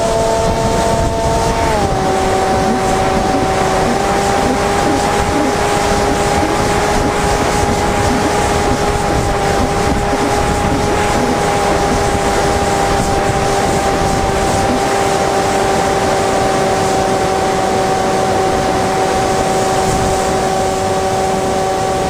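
Flinch flying wing's electric motor and propeller whining at a steady pitch, dropping slightly about two seconds in, with wind rushing over the onboard microphone.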